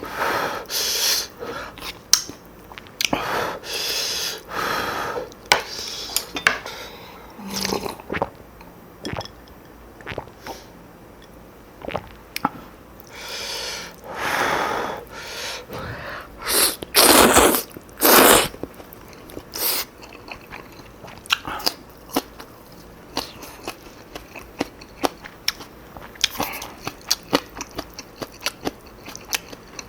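Close-miked eating of Chapagetti black bean noodles: several long airy slurps of the noodles, with wet chewing and many short clicks and crunches in between, thickest in the second half.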